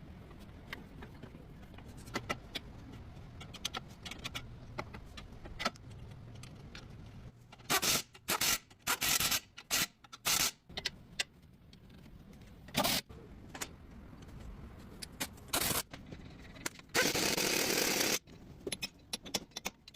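Metal tools and parts clinking and scraping during car repair work, with a low rumble at first and several short, loud bursts of noise from about the middle on, the longest lasting about a second.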